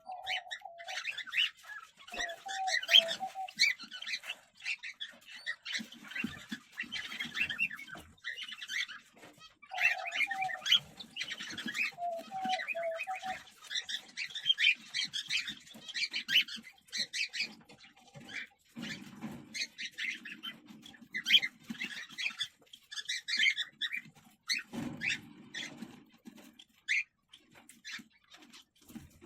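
Cockatiel chicks chirping rapidly and continuously, with a few short, steadier lower calls in the first half. Low rustling or scuffling comes twice in the second half.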